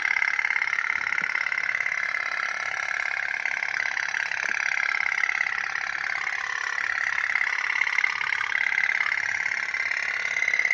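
Tin toy pop-pop steam boat running, its candle-heated boiler giving a steady, rapid, high putt-putt rattle.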